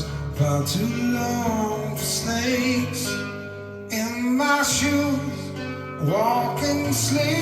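An acoustic rock song with acoustic guitar and a singing voice, played back from cassette on a Sony TC-FX707R deck.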